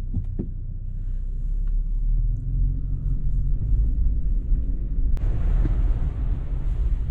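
Low, steady rumble of a pickup truck on the move. About five seconds in, a hiss of road or wind noise joins it.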